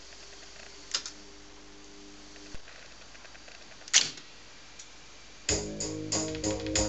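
Revox A77 reel-to-reel tape deck's transport switching by remote. A faint hum stops with a click, and a few sharp clicks and clunks come, the loudest a little before the end. About five and a half seconds in, playback starts: strummed guitar music with a steady rhythm.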